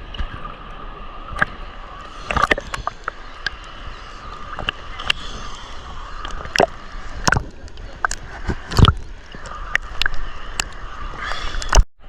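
Small sea waves sloshing and splashing at the water's edge, with many short sharp splashes at irregular moments.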